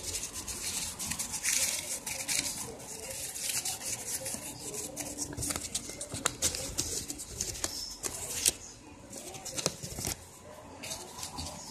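Crumpled notebook paper rustling and crinkling in the hands, with irregular crackles and sharp clicks.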